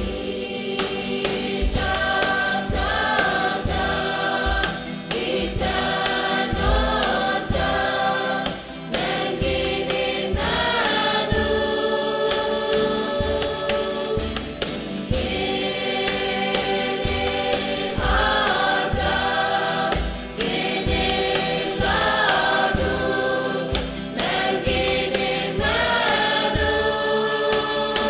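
Background music: voices sing long held chords, like a choir, over a steady drum beat.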